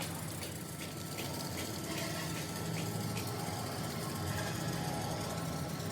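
An engine running steadily at idle, a low even hum, with a run of light clicks, about three a second, during the first half.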